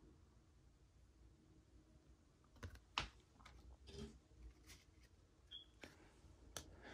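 Mostly near silence, broken from about three seconds in by a handful of faint, short taps and clicks as trading cards are set down and handled on a desk.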